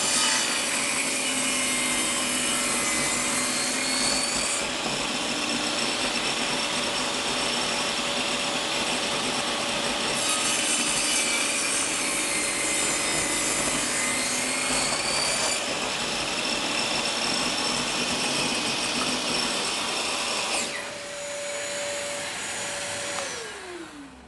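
Total TS5152542 10-inch table saw running and cutting through a wooden board at a 45-degree bevel, with a steady motor tone under the dense cutting noise. About 21 seconds in, the cut ends and the blade runs free, then the saw is switched off and its pitch falls away as the blade spins down near the end.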